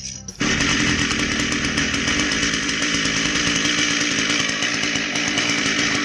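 Echo PAS-266 trimmer power head's small two-stroke engine, water-logged and dried out so it could run, speeding up sharply about half a second in and then running steadily at high revs.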